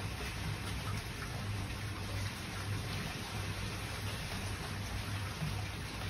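Steady rain falling on garden trees and foliage: an even hiss dotted with small drop ticks, over a low steady rumble.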